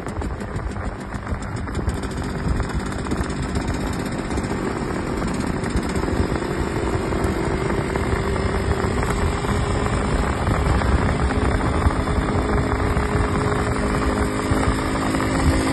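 Yamaha RX 100's two-stroke single-cylinder engine running under way as the bike accelerates, its pitch slowly rising and growing louder, mixed with heavy wind and road noise.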